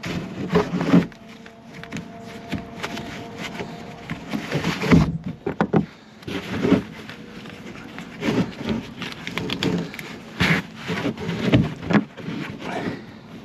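Irregular knocks and clinks of metal suspension parts and hand tools being handled while working on a truck's front strut assembly. A faint steady tone runs under them from about one second in to about four and a half seconds in.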